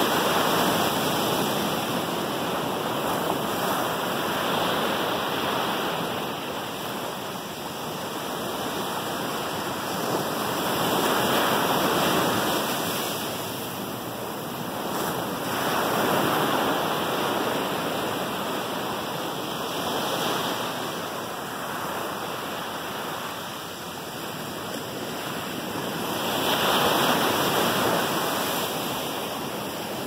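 Ocean surf breaking and washing up a sandy beach, a steady hiss of water that swells and fades in uneven surges a few seconds apart.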